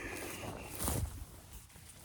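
Footsteps of a person walking over wet, rocky ground, with one heavier step about a second in. A faint high steady tone sounds briefly near the start.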